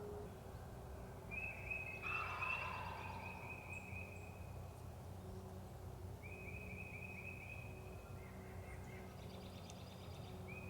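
A wild turkey tom gobbling twice, about two seconds in and again near the end, over a low rush of wind. A long, high wavering trill sounds three times in between.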